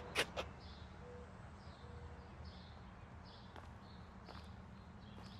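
Faint outdoor ambience of birds calling: soft high chirps repeating about every half second, with two short low notes about one and two seconds in. A couple of sharp clicks come right at the start.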